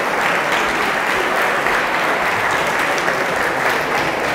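Audience applauding steadily as a speaker is welcomed to the stage.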